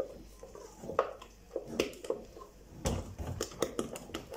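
A spoon stirring a thick mixture in a stainless-steel pot, knocking and scraping against the sides in quick, irregular clicks, with a heavier clatter about three seconds in.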